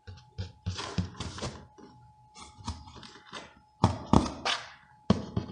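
Irregular scratching, scraping and dull knocks on a cardboard box as a cat inside paws and claws at it and a finger pokes the cardboard. The loudest knocks come about four seconds in and again near the end.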